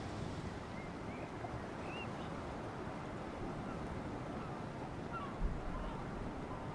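Steady rush of sea surf and wind on a rocky shore, with a few faint, short high bird chirps and one brief low thump about five and a half seconds in.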